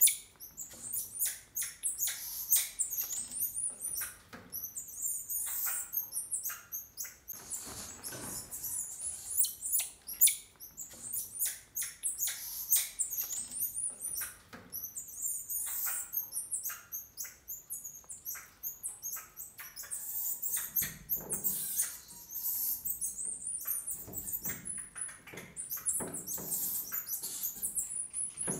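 Emperor tamarins calling: a continual stream of short, very high-pitched chirps and squeaks, one after another.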